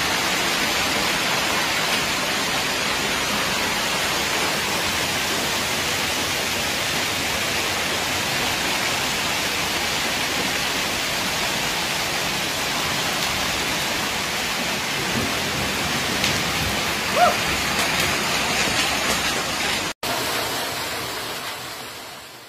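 Heavy hail and rain pelting down in a strong wind, a dense steady hiss. About seventeen seconds in there is a brief short pitched sound. The sound drops out for an instant about twenty seconds in and fades away at the end.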